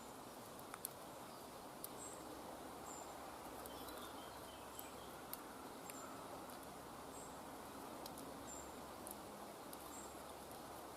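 Quiet woodland ambience: a steady soft hiss with short high chirps repeating about once a second, and a few faint clicks.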